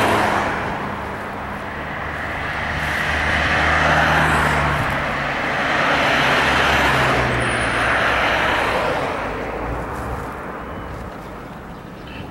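Road traffic: cars passing one after another, the tyre and engine noise swelling and fading several times, then dying down near the end.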